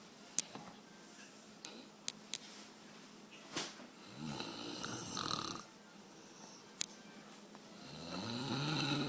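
Snoring: two long snores about three seconds apart, one near the middle and one building near the end, each a pitched rattle rising in pitch. Several short sharp clicks fall between them, the first, about half a second in, the loudest.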